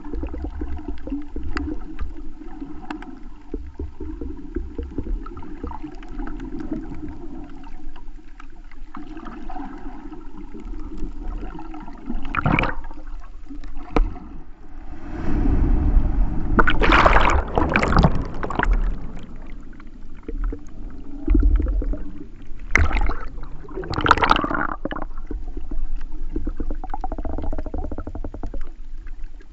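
Water heard underwater through a GoPro Hero Silver's waterproof housing: a muffled, steady low rumble of moving water, with several louder rushes of water around the middle and again near the end.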